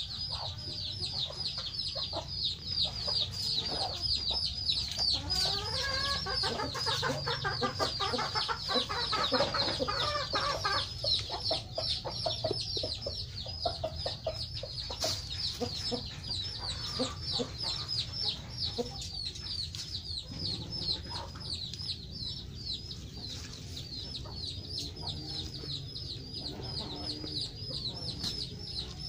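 Chickens clucking, over a rapid, unbroken series of short high peeping calls at about five a second.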